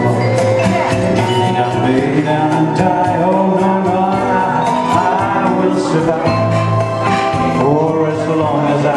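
Male voice singing into a microphone with live accompaniment from a nylon-string classical guitar and an electronic keyboard, over a steady beat of about four strokes a second.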